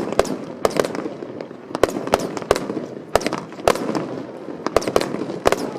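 Fireworks display: about a dozen sharp bangs of shells bursting at irregular intervals, over a continuous crackling haze.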